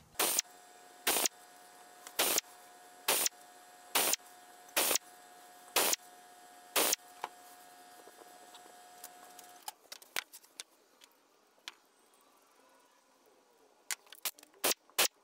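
A run of eight sharp clicks about a second apart, then a quieter spell with scattered faint clicks, and a quick flurry of small clicks near the end.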